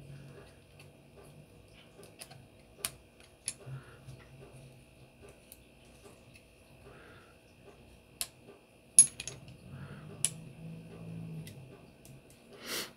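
Small flathead screwdriver turning tiny steel screws into a scope mount on a revolver: scattered light metal clicks and ticks, the loudest about nine seconds in, with a brief hiss near the end.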